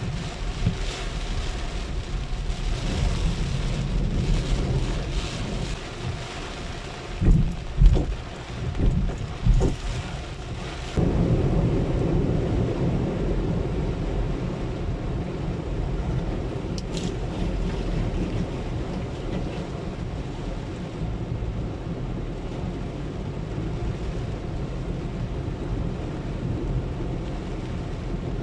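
Heavy rain on a moving car, heard from inside the cabin, with tyres hissing through standing water over a low road rumble. A few heavy thumps come between about seven and ten seconds in, and from about eleven seconds in the water noise turns louder and steady as the car runs through the flooded road.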